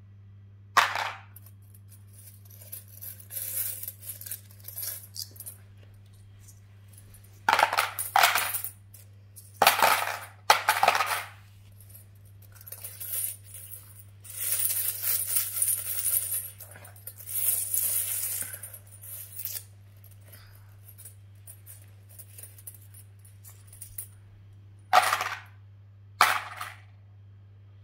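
Small metal coins clinking and jingling as a toddler's hands pick them up, rake through a pile and drop them into a plastic bowl. There are separate sharp clinks, with a longer run of jingling in the middle.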